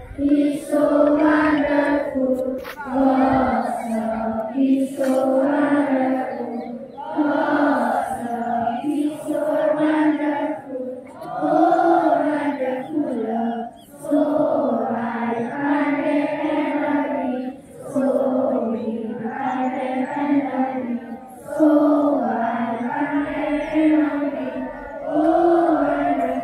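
A large group of schoolchildren chanting a prayer in unison, in short phrases with brief pauses between them.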